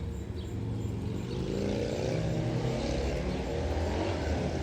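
Distant outdoor tornado warning sirens sounding from several directions, their tones overlapping and wavering slightly in pitch and swelling about a second and a half in, over a steady low rumble.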